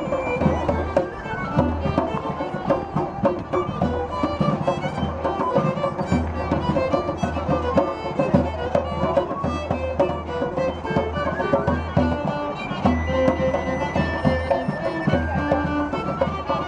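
Live fiddle, fife and rope-tension drum playing a folk tune together, with quick, busy fiddle notes over regular drum strokes.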